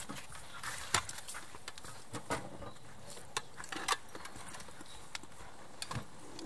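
Footsteps and the knocking and clinking of a soldier's hanging field gear, such as a metal mess tin and gas-mask canister, as he walks. Irregular sharp clicks and knocks come every fraction of a second over a steady background hiss.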